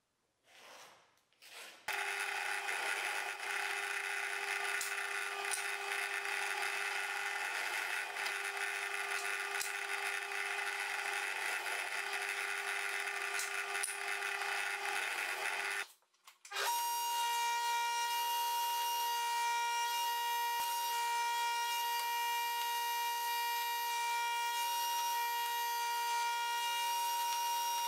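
A drill press runs steadily for about fourteen seconds. After a short break, a table-mounted router takes over with a steady high whine.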